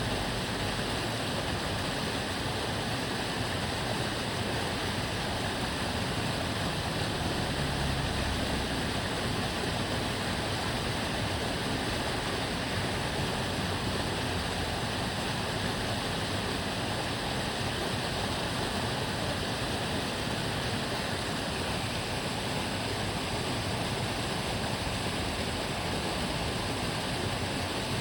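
Water flowing and babbling steadily in a narrow aqueduct stream. A brief low rumble swells about seven to nine seconds in.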